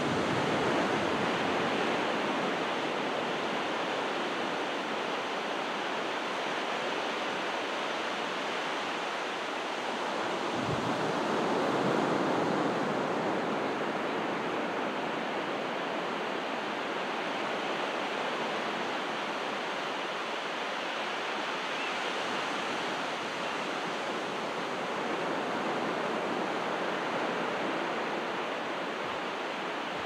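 Calm ocean waves breaking and washing onto a beach: a steady surf wash that swells a little about twelve seconds in and again near the end.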